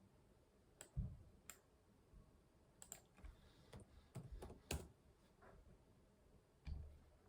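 Faint, scattered clicks of a computer keyboard and mouse in use, coming a few at a time at irregular moments rather than as steady typing, some with a soft thud.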